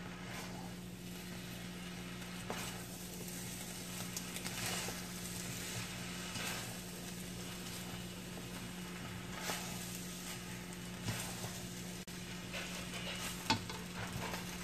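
Pancit noodles sizzling in a wok as they are tossed with a spatula and fork, with a few brief scrapes and clicks of the utensils against the pan, over a steady low hum.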